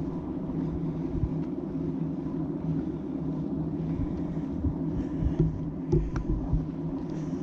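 A steady low engine-like drone, with irregular low thumps and a few faint clicks in the second half.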